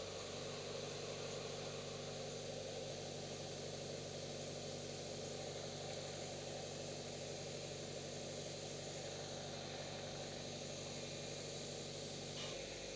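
A steady, faint engine-like hum that holds one even pitch without rising or falling, with a light hiss over it; it changes abruptly near the end.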